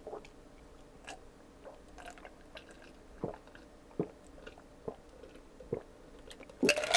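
Close-miked gulps of ice water drunk from a cup: a swallow about once a second, with a louder burst of sound near the end.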